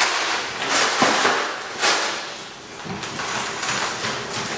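Cardboard of a flat-pack furniture carton being pulled open and torn, in several rough ripping and crackling bursts.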